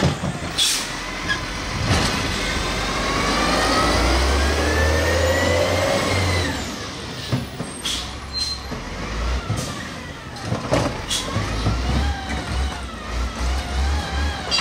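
Mini Rapid Rail garbage truck's engine revved in neutral. The revs climb steadily for about four seconds and fall back about halfway through, then it is blipped in several short up-and-down revs near the end.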